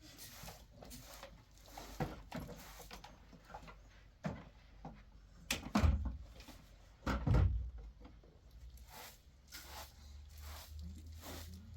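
A series of knocks and thumps, the two loudest about six and seven and a half seconds in.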